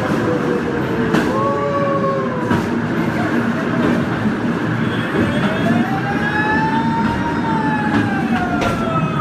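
Scenic Railway cable-hauled carriage running down its steep track: a steady rumble of wheels on rail, with squeals that slowly rise and fall in pitch and occasional sharp clicks.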